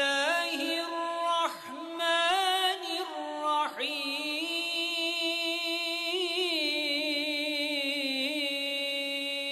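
A man's solo voice reciting the Quran in the melodic tilawa style, unaccompanied, with ornamented turns between notes and a long held note from about four seconds in.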